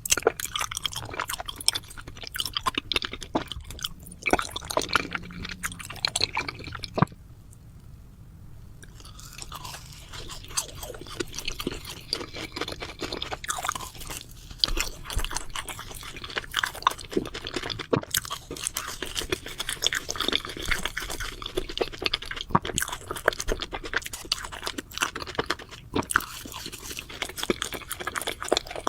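Close-miked crunching and chewing of crisp food, dense irregular crackles, with a short lull about seven seconds in before the chewing resumes.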